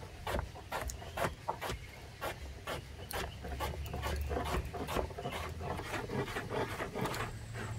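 Knife cutting a pumpkin into small pieces: a run of short, uneven cuts and scrapes, several a second.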